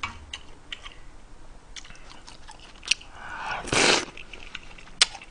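Close-miked eating: soft mouth clicks and chewing, then a loud slurp of a spoonful of kimchi stew a little under four seconds in, with a sharp click just before it and another about a second after.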